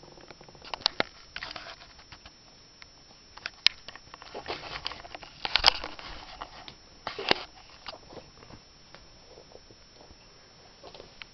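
Guinea pig scrabbling against its cage: irregular clicks and scratchy rustles of claws on the plastic base, wire bars and ramp, busiest and loudest in the middle.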